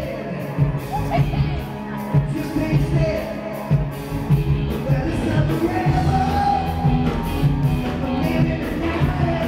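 Dance song with singing over a steady, regular beat, played loud.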